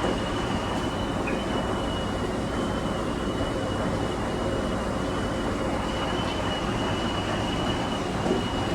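Coin-laundromat machine running: a steady rumble with a thin high whine that wavers slightly.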